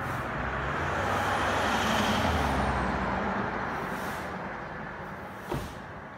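A motor vehicle driving past on the street: its engine and road noise swell to a peak about two seconds in and then fade as it moves away. A short sharp knock comes near the end.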